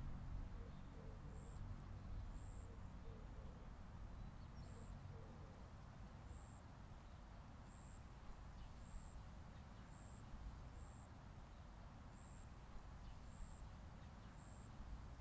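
Quiet outdoor ambience: a steady low rumble of distant traffic, with short faint high chirps about once a second.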